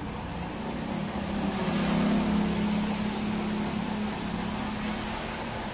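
A motor vehicle driving past on the wet street, its engine hum swelling to its loudest about two seconds in and then fading, over a steady background hiss.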